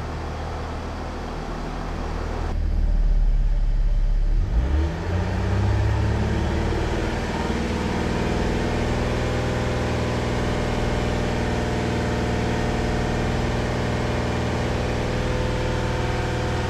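Mercedes ML's OM642 3.0-litre V6 diesel engine running: a steady hum at first, then a heavier low rumble. About four and a half seconds in it rises in pitch and holds a steady, raised speed. It is running on a test with the back-pressure gauge after the blocked catalytic converter was cleared, and the back-pressure fault is fixed.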